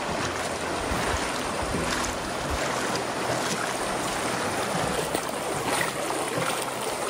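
Flowing river water: a steady rushing hiss, with a few brief sharper splashes.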